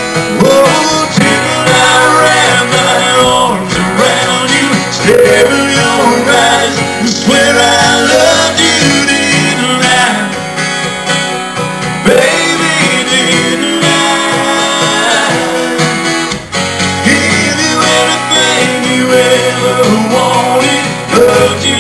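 Live country music played on acoustic guitars, strummed and picked, with a moving melody line over them.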